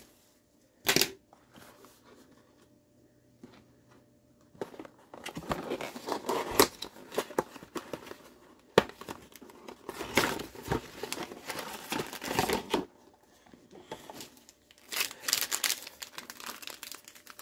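Plastic wrapping of a Panini Prizm basketball card box and pack being torn open and crinkled by hand. A sharp rustle comes about a second in, then a few quiet seconds, then irregular spells of crinkling and tearing.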